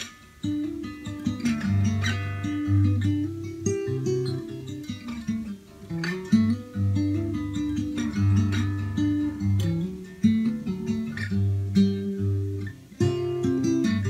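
Fingerpicked 1979 Sigma DM18 acoustic guitar with a solid spruce top: a steady thumb-picked bass under melody notes on the higher strings. The playing picks up about half a second in and has a brief break about a second before the end.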